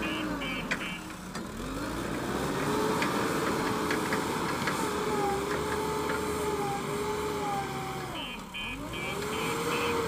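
JCB backhoe loader's diesel engine working as the front bucket pushes soil. Its pitch dips and climbs back twice, about a second in and again near the end, where a rapid repeating beeping starts.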